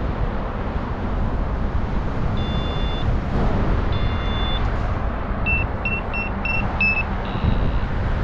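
Wind rushing over the microphone in flight, with a paragliding variometer beeping over it: two longer tones, then a quick run of five short beeps, then one more tone near the end.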